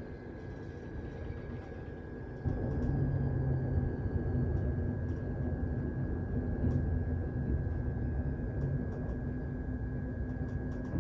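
London Underground 1972 Stock train heard from inside the car while running between stations: a steady rumble of wheels and running gear with a constant high whine and scattered light clicks. The rumble gets noticeably louder about two and a half seconds in.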